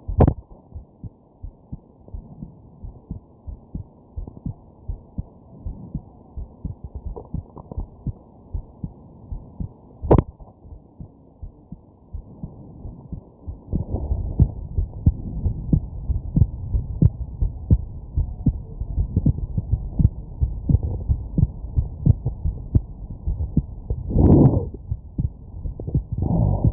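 A person's heartbeat, heard as a steady, muffled pulse of low thumps, broken by two sharp hiccup jolts, one right at the start and one about ten seconds in. About halfway through the beats grow louder, and near the end two longer, swelling muffled sounds come in.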